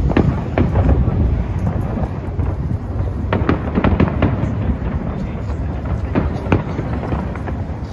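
Fireworks display: a dense run of sharp bangs and crackles over a continuous low rumble of booming shells.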